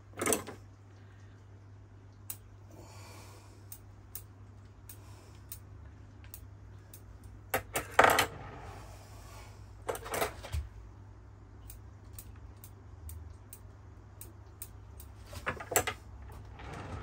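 Scattered small metallic clicks and short clatters of bonsai tools and copper wire being handled while wiring a juniper branch, with a few louder clusters, the loudest about halfway through.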